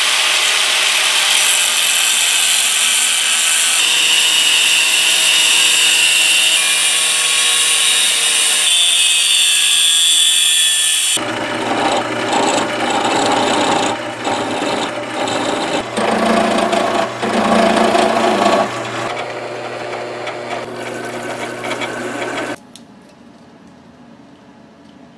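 Angle grinder with a cut-off wheel slicing through steel angle iron, a loud steady high-pitched hiss. About eleven seconds in it changes to a lathe running with a low hum while a cutting tool turns the end of a steel post square, uneven and rising in louder stretches. Near the end the sound drops away abruptly to a low level.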